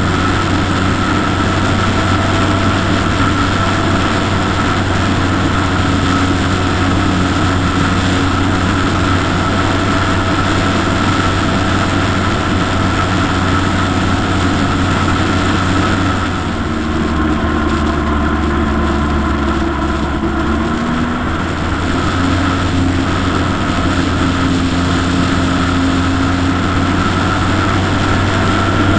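Motor of a camera-carrying model aircraft running steadily in flight, heard up close from on board with rushing air. For a few seconds past the middle its note changes and eases slightly, as if throttled back, then it returns.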